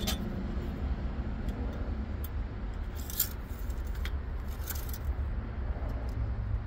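Engine oil dipstick being handled and drawn from its tube: a few short, light metallic clicks and scrapes over a steady low background rumble.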